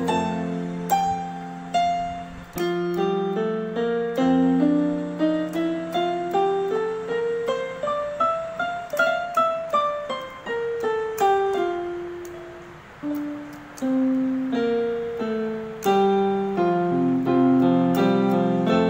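Casio electronic keyboard with a piano sound, playing the E-flat major scale: single notes step up the scale and then back down, over a held low note, with chords near the start and the end.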